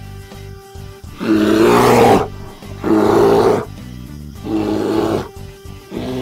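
A bear growling four times, each growl lasting under a second, the first one about a second in the longest and loudest, over background music.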